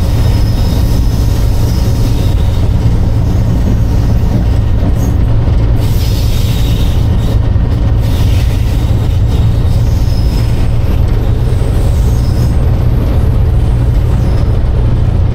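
Class 47 diesel-electric locomotive's Sulzer 12LDA28 V12 engine running, heard from inside the driving cab as a loud, steady low drone with rail noise beneath it.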